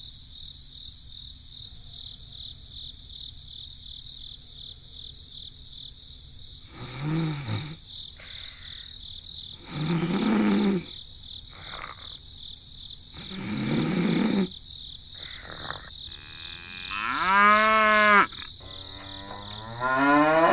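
Cattle mooing about five times, each call about a second long, the last two the loudest. Under the calls runs a steady, high, pulsing chirr of insects.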